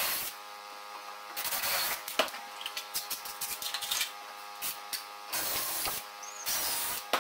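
Cordless drill-driver run in several short bursts, drilling and driving fixings into an oak handrail and half newel, with a pause of a few seconds in the middle.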